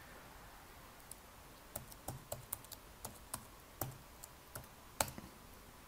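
Computer keyboard being typed on: a faint, irregular run of about a dozen key clicks as a password is entered, with a louder click about five seconds in.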